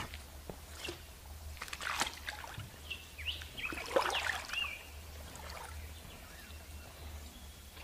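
Birds chirping a few short rising-and-falling notes about three to four and a half seconds in, over a faint trickle of creek water, with scattered rustles and knocks of rope and a wire trap being handled.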